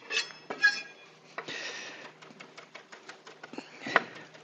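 Chef's knife on a wooden butcher-block board mincing smashed garlic: a couple of clinks of the blade early on, a short scrape, then a quick run of light chopping taps with one louder knock near the end.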